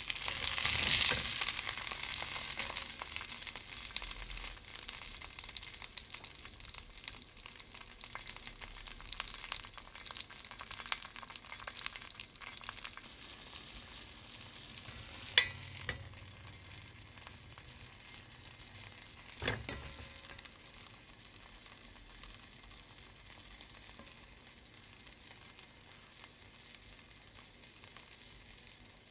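Duck breast pieces sizzling in fat in a non-stick frying pan, loudest about a second in as a spatula turns them, then dying down gradually. Two sharp taps stand out around the middle.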